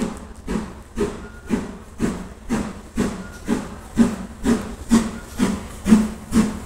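Exhaust of the GWR Castle class four-cylinder 4-6-0 steam locomotive No. 5043 'Earl of Mount Edgcumbe' chuffing under steam, about two sharp hissing beats a second, growing louder as the engine approaches.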